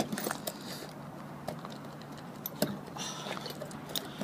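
Front door being unlocked and opened with keys: a sharp click of the lock at the start, then small clicks of the latch and door, and a brief jingle of keys about three seconds in.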